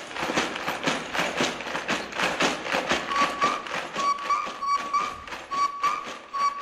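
Cartoon sound effects for an animated horse: a steady run of hoofbeat-like taps, about four or five a second. About three seconds in, a short high squeak joins them and repeats, mostly two at a time.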